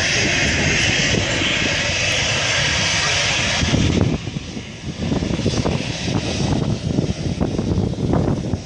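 Jet engines of an Airbus A380 airliner on the distant runway, running with a steady rushing noise. After about four seconds, wind gusts buffet the microphone.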